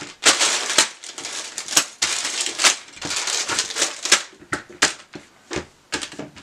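Plastic bags of small building-brick parts crinkling and rustling as they are handled and laid out on a table, in quick irregular bursts. Toward the end come a few separate clicks and knocks as parts are set down.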